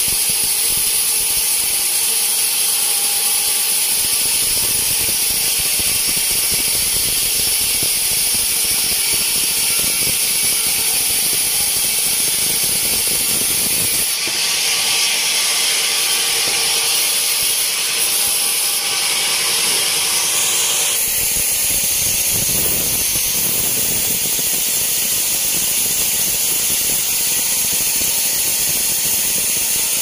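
Sawmill band saw cutting lengthwise through a teak log as the carriage feeds it past the blade: a loud, steady hiss with a high whine over the motor. The tone of the cut shifts about halfway through and again a few seconds later.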